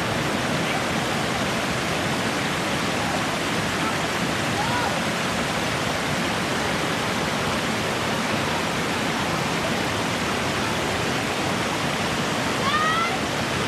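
Waterfall rushing steadily into a pool, a dense, unbroken roar of falling water. Faint high voices rise over it near the end.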